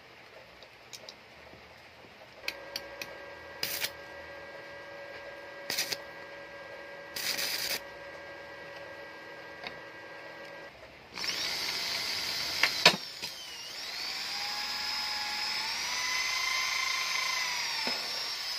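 Handheld power drill boring through a stainless steel patch on a bicycle frame's head tube to make rivet holes. The motor whine climbs in pitch and then holds steady, with a sharp crack as the bit bites early in the run. It is preceded by a few short, sharp bursts over a faint steady hum.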